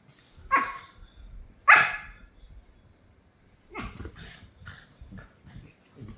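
Puppies play-barking while wrestling: two sharp barks about half a second and a second and a half in, then a run of quieter short yips.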